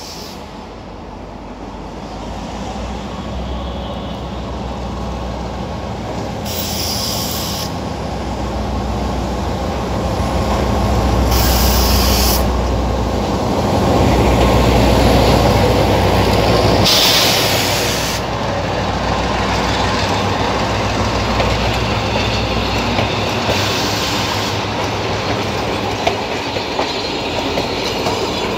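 Diesel-hauled passenger train passing close by: the locomotive's engine rumble swells to its loudest as it goes past in the middle, then the coaches' wheels roll on with a clickety-clack over the rail joints. Four brief high hisses come at intervals of about five seconds.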